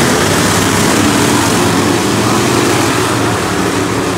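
A pack of dirt-track race cars running hard around the oval, their engines loud as the field passes close by, easing slightly near the end as the cars pull away.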